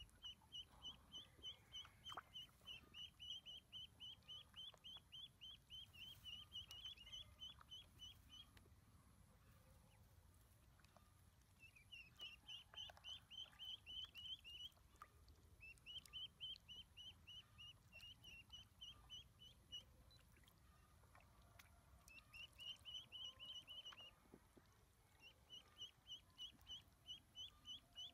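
Ducklings peeping: quick high peeps, about three or four a second, in runs of several seconds with short pauses between.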